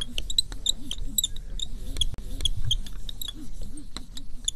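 Felt-tip marker squeaking and scratching on a whiteboard as letters are drawn: a string of short, high squeaks at an irregular pace.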